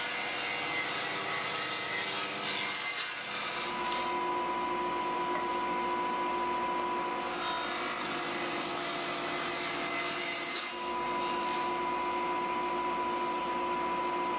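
Table saw running with a steady tone while it makes two miter cuts through wooden picture-frame molding on a miter sled. The hissing cutting noise lasts about the first four seconds, then comes again for about four seconds from halfway through.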